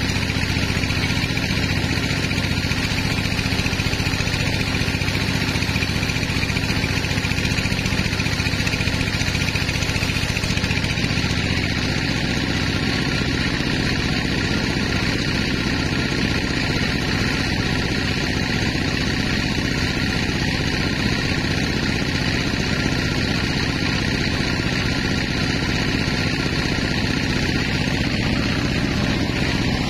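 Large vertical band saw running steadily, its blade cutting lengthwise through a big squared log on the saw carriage.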